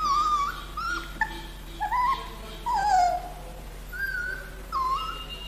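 Puppy whimpering and yelping in a string of short high cries, one sliding down in pitch about halfway through, in pain as a mango worm (tumbu fly larva) is squeezed out of its skin.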